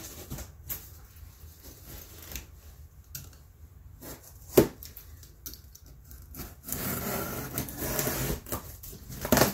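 Box cutter blade slicing through a cardboard box: scattered scrapes and clicks with one sharp click about halfway through, then a steady sawing scrape over the last three seconds that ends in a knock.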